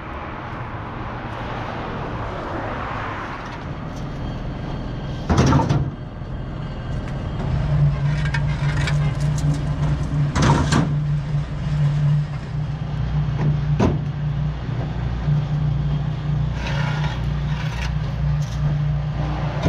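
A motor vehicle's engine running steadily with a low hum, with two loud thumps about five and a half and ten and a half seconds in, and a few lighter clicks.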